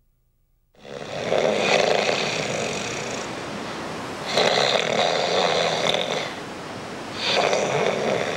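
A man snoring in his sleep: three long, loud snores about three seconds apart, the first starting about a second in.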